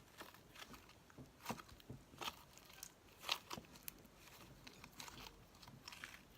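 Slime being stretched and kneaded by hand: faint sticky clicks and squelches, a few sharper ones scattered through.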